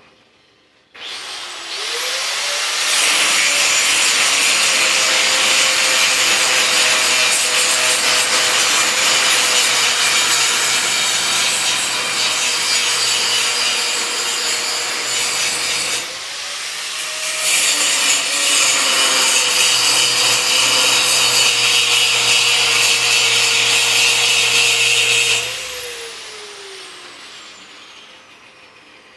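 An electric power cutting tool spins up, then cuts through metal stock in two long passes with a brief let-up between them. After the second pass its motor winds down with a falling whine.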